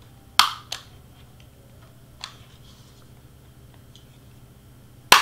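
Handheld hole punch snapping through glitter cardstock: a sharp click about half a second in with a lighter one right after, a faint click around two seconds, and another sharp click near the end.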